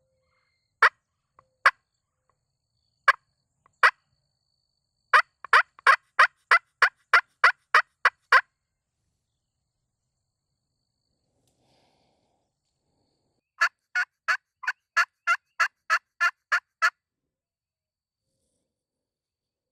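Crystal (glass) pot turkey call worked with a striker, yelping like a hen: a few single notes, then two long runs of evenly spaced yelps, about three a second, with a pause between them.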